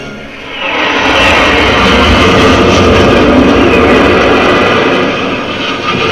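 Loud rushing vehicle sound effect on the ride film's soundtrack, played through the theatre speakers over the music. It swells up sharply about half a second in, holds steady, and eases a little near the end.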